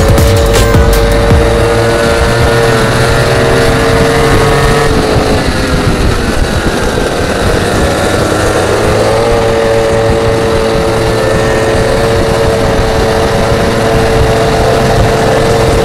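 Small two-stroke engine of a goped stand-up scooter running at high revs with a steady high note. The revs ease off about five seconds in, then pick back up to a steady note a few seconds later.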